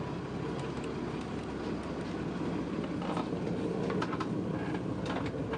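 Steady low rumble of the boat's twin Perkins diesel engines running, heard from inside the cabin, with a few light knocks in the second half.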